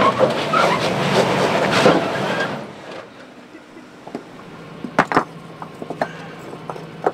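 A loud rushing noise for the first couple of seconds, then a low steady hum from the stuck Lexus GX470's idling engine. Over the hum come a few sharp clacks of rocks knocking together as they are stacked under its tyre.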